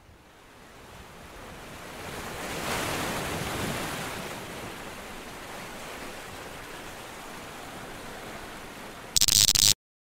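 Ocean surf washing on a beach, one wave swelling about three seconds in and slowly easing off. Near the end comes a brief, loud burst of noise that cuts off suddenly.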